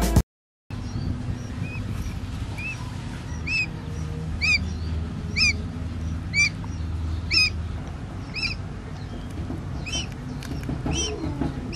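Newly hatched quail chick peeping: short, high calls repeating about once a second, over a low steady hum.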